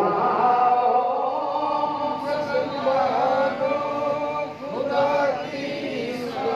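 A man chanting a devotional verse into a microphone, in long, wavering held notes with melodic turns rather than spoken words.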